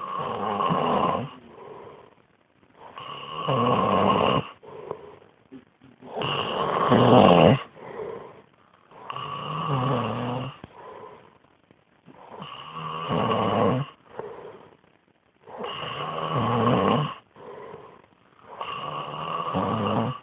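A sleeping child snoring loudly: seven rough snores about three seconds apart, each lasting a second or so, with softer breaths between.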